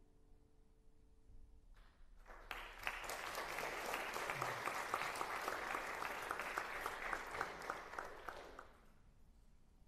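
The last chord of a song dies away, then an audience applauds for about seven seconds, starting about two seconds in and fading out with a few last claps.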